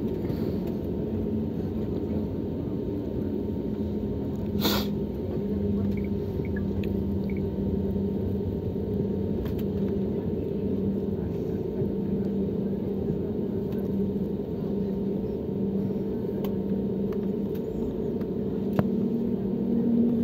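Steady low rumble and hum of an Airbus A320-family airliner's jet engines at taxi power, heard from inside the passenger cabin as the plane taxis toward takeoff. A single sharp click sounds about five seconds in.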